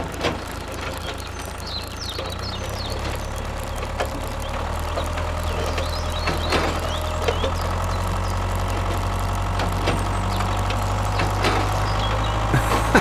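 Tractor engine running steadily with a low drone that slowly grows louder, with scattered light clicks and a few sharp knocks near the end.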